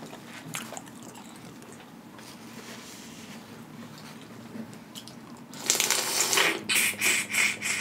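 Close-up eating of a boiled crawfish held to the lips: a quick run of crunching, wet mouth noises about five and a half seconds in, after a quiet stretch.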